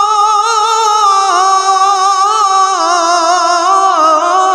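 A male qari reciting the Quran in a high voice, holding one long melismatic note on 'aṭāʿa' with quick wavering ornaments, the pitch stepping slowly down in stages.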